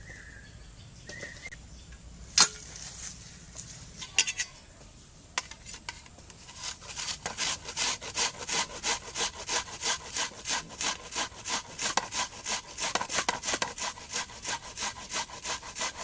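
Peeled onion being grated on a handheld flat stainless-steel grater pressed against a steel plate: a rasping scrape repeating about three times a second, starting some six seconds in. Before that there are a few sharp clicks, the loudest about two seconds in.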